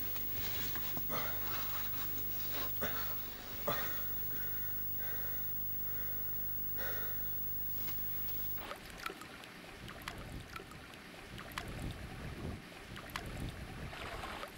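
Scuffing, scraping and knocks of someone crawling through a tight rock passage while handling a camcorder, over a steady electrical hum. The hum drops out abruptly about two-thirds of the way through, and the scraping continues.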